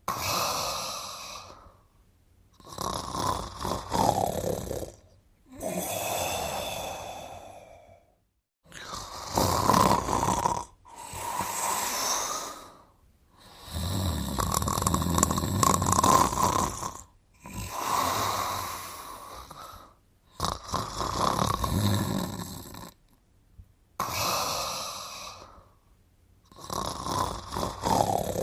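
A cartoon character snoring: about ten rasping snores, each a second or two long, with short pauses between breaths.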